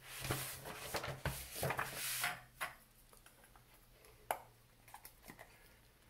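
Handling sounds of a rubber tire being worked onto a Tamiya kit wheel by hand: rustling and rubbing with a few light knocks and clicks, busiest in the first two seconds, then a single sharp click about four seconds in.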